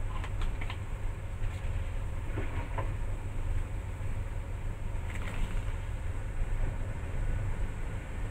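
Water boiling hard in a pan on the stove, a steady low rumble with a few faint clicks and taps over it.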